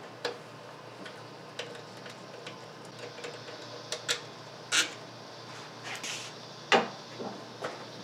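Hands and a tool working at a car engine's coil-on-plug ignition coils: scattered, irregular clicks and knocks of plastic and metal parts being handled, the loudest knock near the end.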